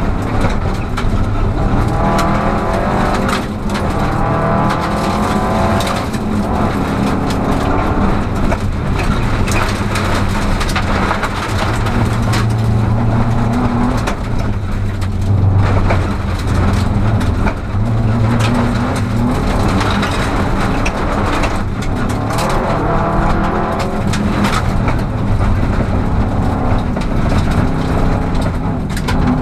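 Rally car's engine at racing speed inside the cabin, its pitch repeatedly rising and falling as it revs and changes gear, with sharp knocks and rattles of gravel against the car.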